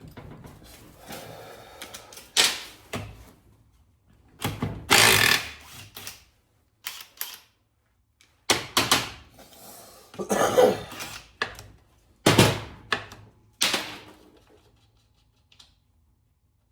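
Irregular knocks, clanks and scrapes of metal transfer-case parts and hand tools being handled on a workbench, a dozen or so separate strikes with short pauses between them.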